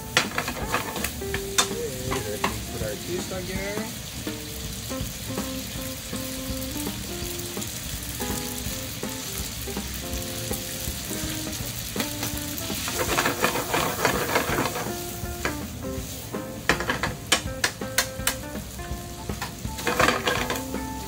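Linguine and shrimp sizzling in olive oil in a frying pan as they are stirred and tossed with wooden chopsticks. Clicks and scrapes of the chopsticks and pan come in busier spells around the middle and again near the end.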